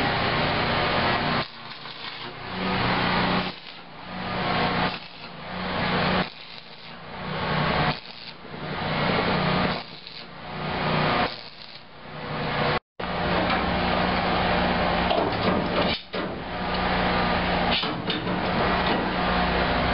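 Electric arc welding on steel shipping-container walls: the arc crackles and buzzes over a steady low hum in a run of short welds, starting and stopping every second or two, then running on more steadily after a sudden brief dropout near the middle.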